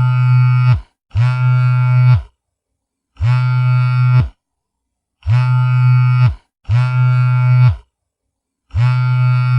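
Mobile phone vibrating: a low buzz in bursts of about a second each, six in all, with short silent gaps between them.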